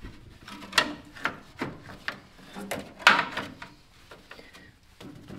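Irregular knocks, clicks and scrapes of rusty sheet-metal scraps and debris being handled and shifted on a car's frame rails, the loudest knock about three seconds in.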